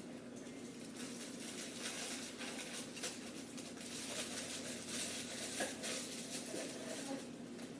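Crinkling and rustling of a foil emergency blanket and tape being handled and pressed onto a cardboard box, a steady run of small crackles.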